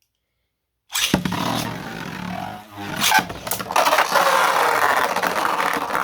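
Two 3D-printed Beyblade spinning tops launched into a stadium about a second in, then spinning with a steady whirring and scraping, with a few sharp clacks as they collide.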